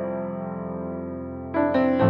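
Calm background piano music: a held chord slowly fading, then new notes struck near the end.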